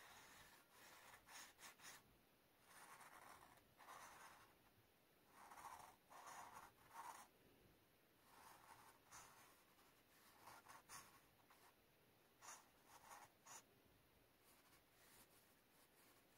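Marker tip scratching on paper in short, quick strokes, coming in clusters with brief pauses, as an area is coloured in. Faint.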